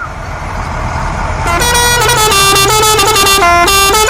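A vehicle engine rumbling, joined about a second and a half in by a loud horn playing a tune of stepped notes.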